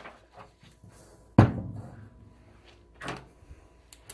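One sharp knock about a second and a half in, the loudest sound here, like a hard object set down or bumped on a bench. It is followed by a softer rustle and a few small clicks near the end.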